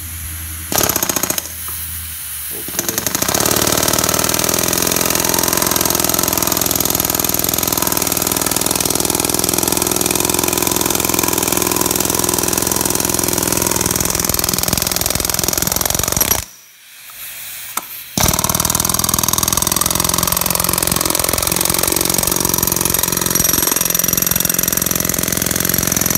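Electric power hammer driving a length of rebar down into the ground through a pipe form in a concrete floor, with rapid, continuous hammering. A short burst comes about a second in, then steady hammering from about three seconds in, stopping for about two seconds past the middle and starting again.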